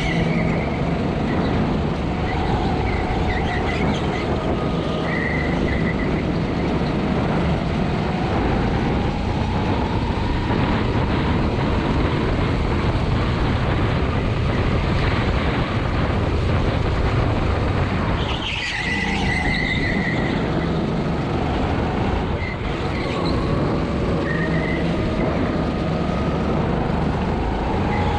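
Sodi SR5 kart's Honda GX200 single-cylinder four-stroke engine running hard on track, its pitch rising and falling as the kart accelerates and slows through corners, with brief tyre squeals now and then.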